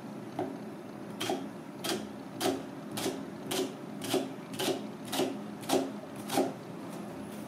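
Kitchen knife slicing down through a half onion and tapping the plastic cutting board, about eleven even strokes at nearly two a second, stopping near the end.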